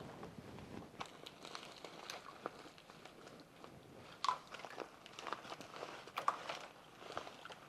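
Scattered light clicks, taps and rustling of small objects being handled, with two sharper clicks about four and six seconds in.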